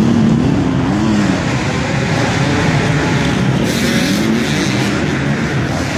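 Motocross bike engines revving hard and backing off again and again, the pitch rising and falling several times.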